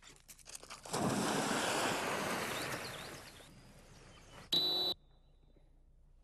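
Outdoor rushing noise of wind on the microphone, loud for about two seconds and then fading, after a few light clicks. Near the end comes one short, loud, high-pitched blast, after which the sound drops away abruptly.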